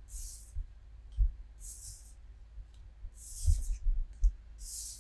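Pokémon trading cards slid across a wooden table and gathered into a stack: four short papery swishes, about one every second and a half, with a few dull knocks against the table.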